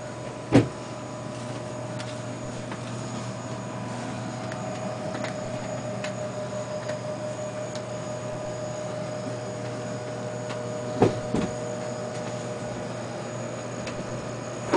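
Steady machine hum made of several fixed tones. A few short sharp knocks come through it: one about half a second in, two close together around eleven seconds, and one at the very end.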